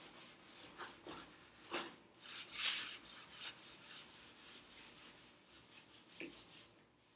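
Stiff-bristled scrub brush worked back and forth over a wooden cabinet door wet with surface cleaner, scrubbing off built-up kitchen grease: a faint rasping rub in repeated strokes, loudest about two and a half seconds in.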